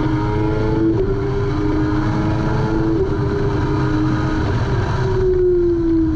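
Kawasaki ZX-6R 636 inline-four engine at high revs under full throttle, its pitch climbing and then dropping as it shifts up, about a second in and again about three seconds in. Near the end the throttle closes and the pitch falls as the bike slows. Heavy wind rush runs under the engine sound.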